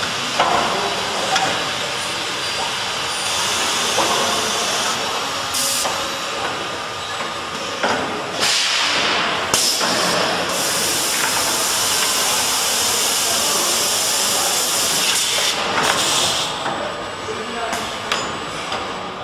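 Two-axis CNC corner cleaning machine working a welded PVC window frame: steady machine noise under loud hissing, with a few louder hissing surges, the longest about halfway through, and occasional knocks.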